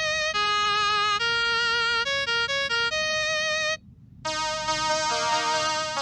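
Synthesizer playing a simple melody of held notes with vibrato, which cuts off nearly four seconds in; after a brief gap a brighter electronic keyboard tune starts, with several notes sounding together.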